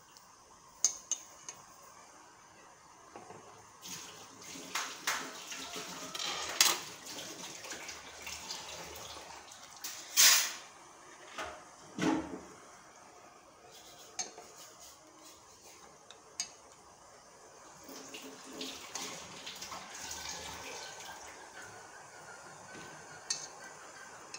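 A metal utensil clinking and scraping against a pot as cabbage leaves are turned in boiling water, with the water sloshing and bubbling. A few sharp clinks come about a second in, then uneven spells of stirring and splashing.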